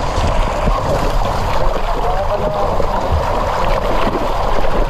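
A crowded mass of milkfish thrashing and splashing at the water's surface in a harvest net, a steady churning of water with many small splashes.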